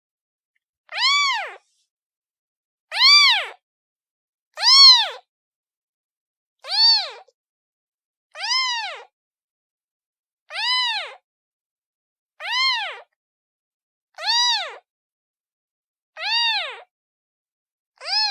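A kitten meowing over and over, calling, about one meow every two seconds. Each is a short, high call that rises and then falls in pitch, with silence between the calls.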